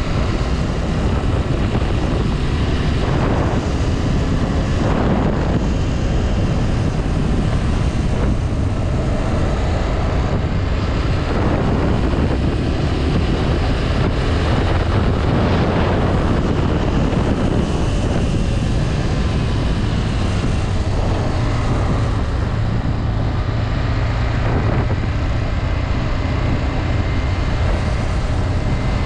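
Honda Twister 250F single-cylinder motorcycle engine running under way, its note shifting a few times with changes of speed, with wind noise on the helmet microphone.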